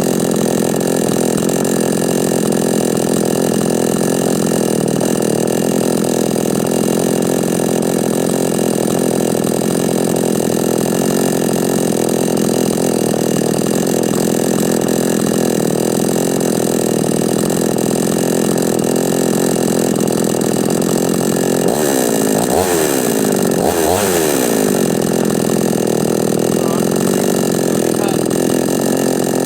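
Chinese 45cc two-stroke chainsaw engine, freshly re-ported and fitted with new piston rings, running steadily on its first start. Near the end it is briefly revved twice, the pitch rising and dropping back each time.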